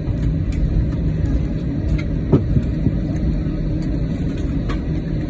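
Airbus A321 passenger cabin noise while the jet rolls along the ground after landing: a steady low rumble, with a few light knocks, the loudest about two seconds in.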